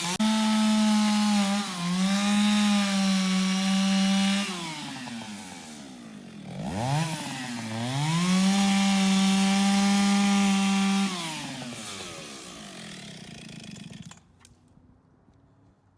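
Antique Stihl two-stroke chainsaw held at full throttle, dropping back and revving up again, then falling to idle and shutting off abruptly near the end. The owner thinks its high-speed carburettor setting needs a slight adjustment.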